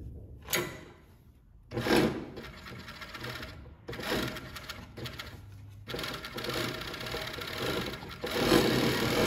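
Kansai Special NR9803GCC industrial cover stitch machine stitching two layers of stretch knit fabric. It runs in several short bursts with brief stops, and runs loudest over the last second.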